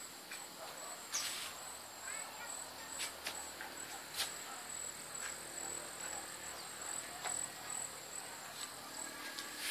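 Insects calling in a steady, high-pitched pulsing trill, with a few sharp clicks and faint chirps.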